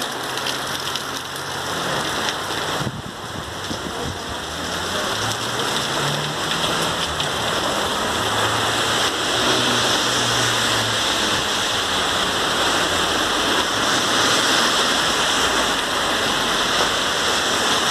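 Heavy rain falling steadily on the street and parked cars, a dense hiss that grows a little heavier a few seconds in.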